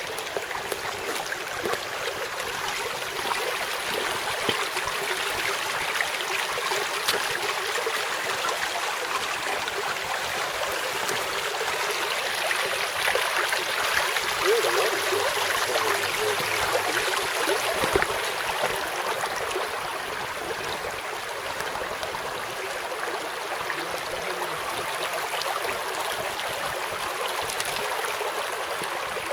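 Running water rushing steadily, like a nearby creek.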